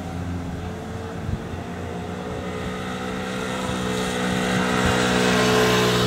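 Road traffic on a street: a steady engine hum of passing cars and a motorcycle, growing louder from about four seconds in as a vehicle comes up the road.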